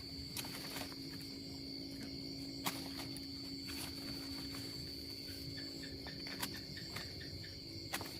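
Insects chirring in one steady high note, with a steady low hum beneath and a few sharp clicks scattered through.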